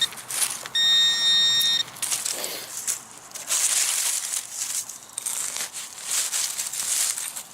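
Metal-detecting pinpointer giving a buzzing tone over a buried metal target; the tone cuts off about two seconds in. After that come crackling scrapes of digging in the dirt.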